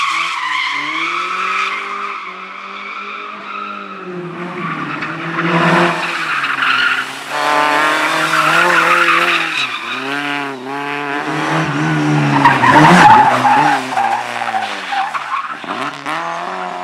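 Competition car driven hard on a closed course: the engine revs up and drops back again and again as the driver accelerates, lifts and shifts, with tyres skidding and squealing. It is loudest about thirteen seconds in.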